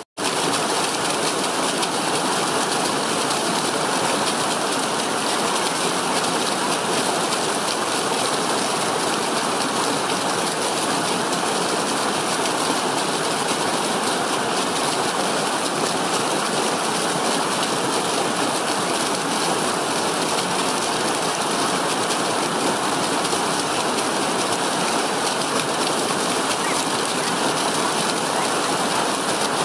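Small stream cascading down a steep rocky slope in white water, giving a steady, loud rush and splash. The sound cuts out for an instant right at the start.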